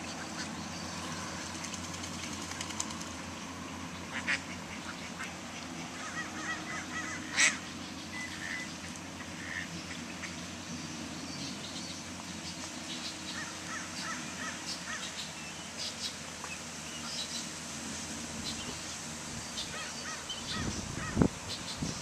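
Mallard ducks quacking in short runs of calls, strongest about six to ten seconds in and again a little past the middle, over a steady low background hum. A low thump near the end.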